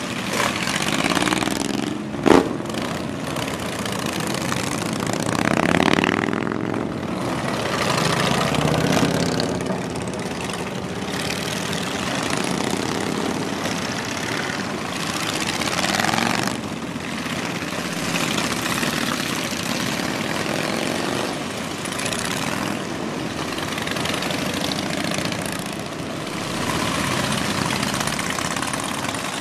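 A procession of large cruiser and touring motorcycles pulling away one after another, many engines running together, each rising and falling in pitch as it accelerates past close by. A single sharp pop about two seconds in.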